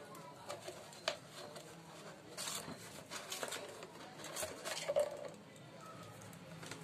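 Hands handling a cut plastic bottle with jute twine wound round it: scattered faint crinkles and taps of the thin plastic, the loudest about five seconds in.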